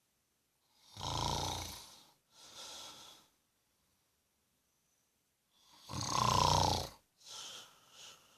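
A sleeping man snoring: two loud, rattling snores about five seconds apart, each followed by a softer breath out.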